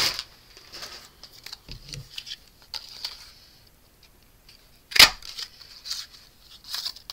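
Soft paper rustling and handling, then about five seconds in one sharp snap as a Stampin' Up Double Oval Punch is pressed and cuts an oval from white paper.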